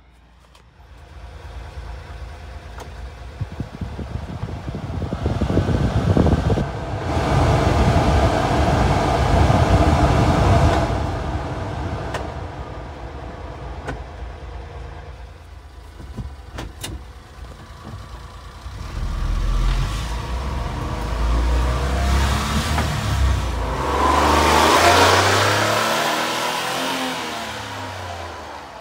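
1993 Honda Acty kei truck running, heard from the cab, while its heater blower fan is switched up and down through its speeds: a rushing air noise swells and fades twice, with a few sharp switch clicks in between.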